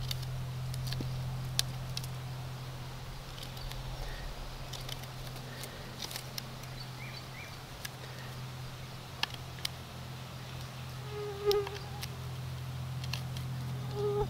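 Knife carving a groove around the handle of a wooden bow-drill bow: scattered short cuts and scrapes, over a steady low buzz.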